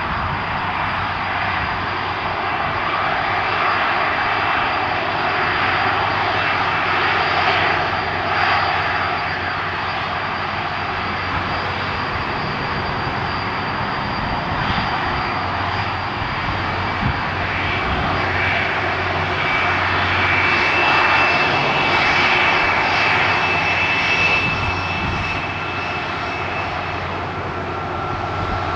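Boeing 747-400 freighter's four jet engines running at low taxi power as it taxis past: a steady rushing noise with high whining tones, loudest about two-thirds of the way through as it comes closest.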